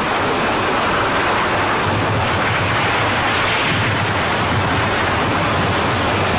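Atomic bomb blast sound effect from an animated film: a loud, steady rushing noise with a low rumble underneath.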